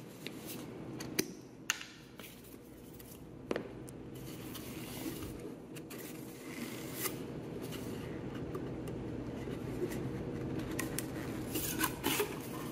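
Plastic wrapping of an Oatey Fix-It Stick epoxy putty tube crinkling and rubbing as the tube is turned and twisted in the hands, with scattered sharp clicks. A low steady hum sits underneath.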